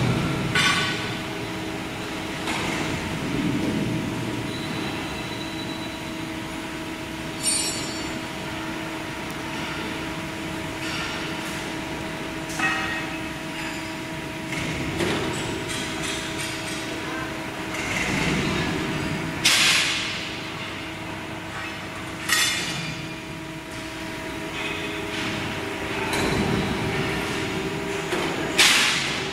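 Horizontal metal band saw running with a steady motor hum while its head swings round to a new cutting angle, with several sudden loud bursts of mechanical noise over the hum.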